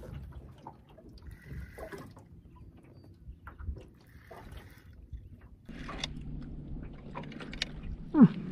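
Water lapping and splashing beside a boat as a smallmouth bass is reeled in, with faint clicks from the spinning reel. A brief, loud falling squeal sounds near the end.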